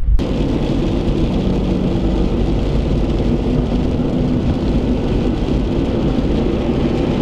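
Steady road noise and engine rumble, heard from inside a moving car on a sleet-covered highway as it draws alongside a snowplow truck clearing the road.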